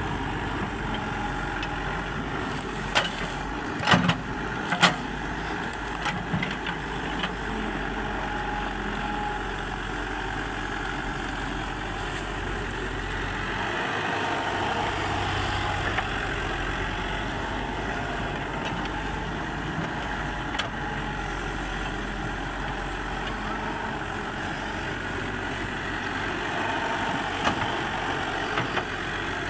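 Excavator's diesel engine running steadily, with a few sharp knocks and clanks about four and five seconds in and again near the end.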